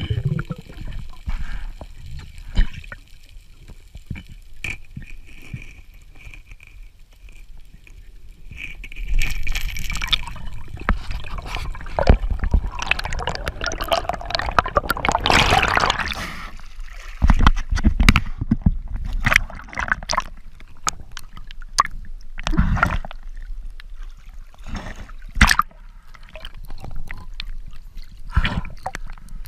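Water gurgling and sloshing in irregular bursts over a low rumble, with a few short clicks: typical of sound recorded underwater.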